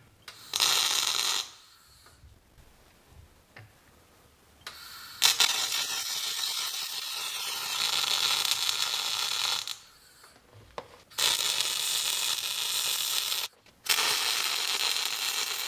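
MIG (wire-feed) welder arc crackling as steel is welded, in four runs. A short one comes near the start, a long one of about five seconds follows, and two more come near the end with a brief break between them.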